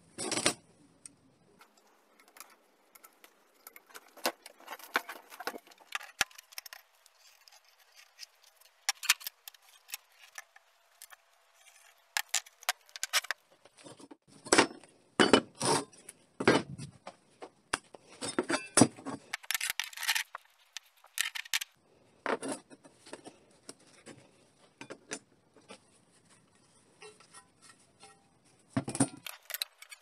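Steel parts and hand tools handled on a workbench: irregular clinks, taps and knocks of metal, with a few longer scraping clatters in the middle.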